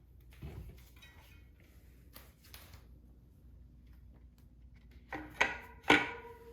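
Bicycle parts being handled on a work surface: faint clicks and rubbing, then two sharper metal clanks about five and six seconds in, each leaving a brief ringing tone.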